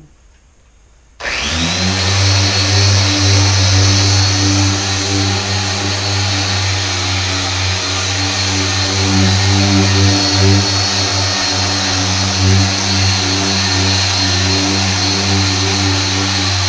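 Machine car polisher switched on about a second in, spinning up quickly with a rising whine, then running steadily with a strong hum at speed setting 6 as it works finishing polish into the paint.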